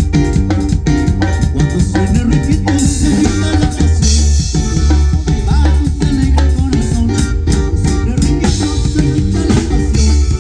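Band music with a drum kit and percussion keeping a steady beat.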